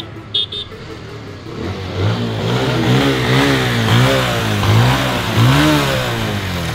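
Single-cylinder motorcycle engine being revved in repeated throttle blips, its pitch rising and falling about six times, starting about two seconds in.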